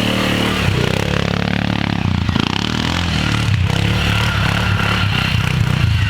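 A small vehicle's engine revs up in pitch about a second in, then runs steadily as the vehicle drives off.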